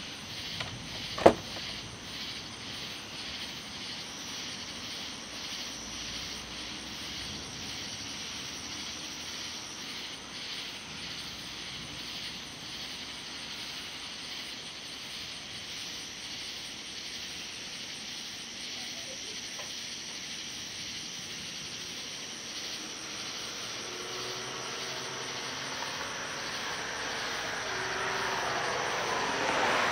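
Steady pulsing chirr of night insects, with one sharp click about a second in. Over the last several seconds the noise of a passing vehicle or aircraft grows louder.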